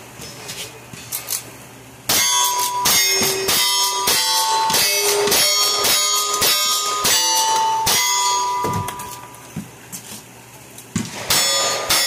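Rapid gunfire from a lever-action rifle, about two shots a second for some six seconds, each shot followed by the ringing clang of a hit steel target. After a short pause, single-action revolver shots with more ringing steel start near the end.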